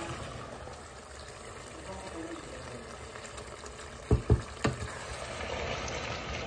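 Liquid poured into a hot pan of bolognese sauce, with a steady hiss and splash. About four seconds in, three sharp knocks come from a wooden spatula striking the pan.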